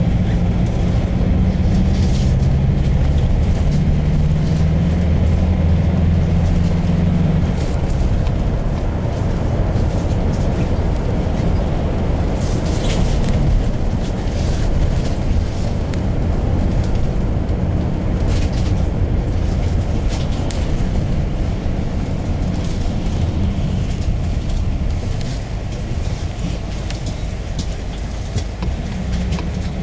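Cabin noise inside a GAZelle Next minibus on the move: a steady low engine drone and road rumble. A clear engine tone stands out for the first several seconds, then settles into even road noise, with a few faint clicks now and then.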